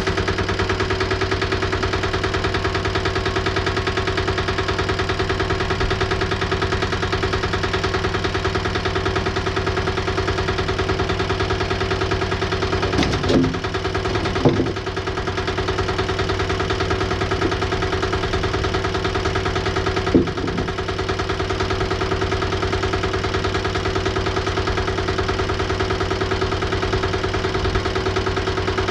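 Woodmizer LT15 portable bandsaw sawmill running steadily at a constant pitch, with a few short knocks from about halfway through.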